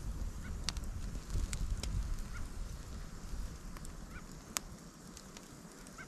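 Wind rumbling on the microphone, with a few short, soft chirps from Canada jays and several sharp clicks. The rumble eases off toward the end.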